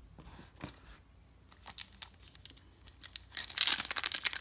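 A few faint ticks of cards being handled, then, about three seconds in, the wrapper of a Bowman Platinum baseball card pack crinkling loudly as it is torn open.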